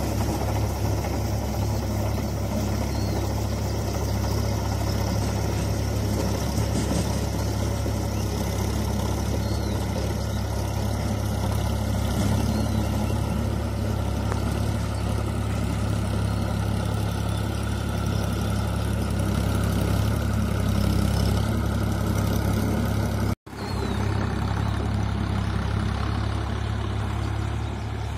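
Sonalika tractor's diesel engine running steadily under load while it drives a Shaktiman rotavator through wet paddy-field mud. The sound cuts out for an instant about 23 seconds in.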